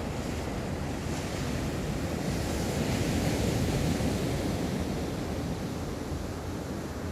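Sea waves washing onto a beach, the surf swelling about three seconds in, with wind buffeting the microphone.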